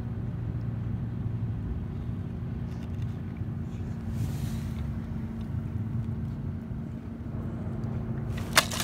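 A steady low engine drone, like a motor idling, with two sharp clicks near the end.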